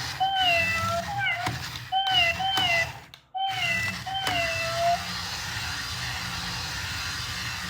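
Recorded electronic meows from a toy robot cat: the same short meow call played over and over, about seven times in the first five seconds, the last one drawn out. A steady noise carries on without meows after that.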